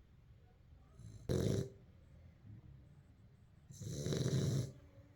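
Snoring in sleep: two snores, a short one about a second in and a longer one near the end.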